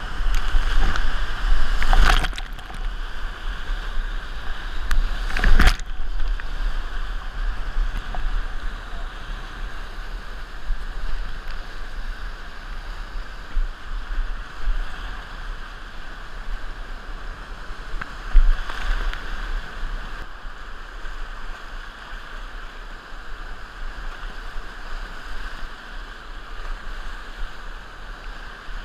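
Whitewater rapids rushing steadily around a kayak as it is paddled through, with two sharp, loud hits about two and five-and-a-half seconds in and a smaller one later; the rush is loudest early on, then settles a little.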